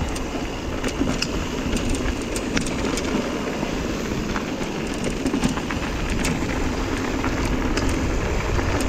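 Mountain bike riding a dry dirt trail: a steady rumble of tyres on the ground with many scattered clicks and rattles.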